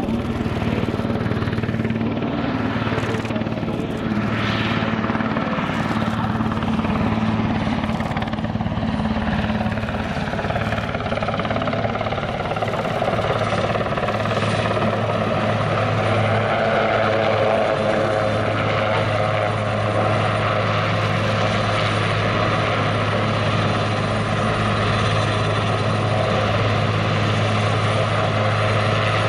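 Eurocopter AS532UL Cougar (Super Puma) twin-turbine helicopter in low flight: a steady rotor drone with a higher turbine whine that grows stronger about halfway through.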